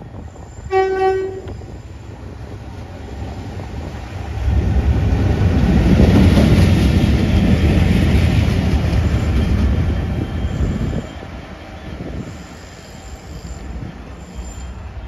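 GBRf Class 66 diesel locomotive 66749 sounds one short horn note about a second in. It then passes close by with its two-stroke V12 diesel engine running loudly, loudest around six to eight seconds in and dropping away after about eleven seconds as it pulls off.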